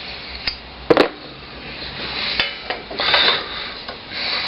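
Metal clinks and knocks of hand tools and bolts being handled during work on a motorcycle's front wheel, with one sharp clack about a second in and some scraping after it.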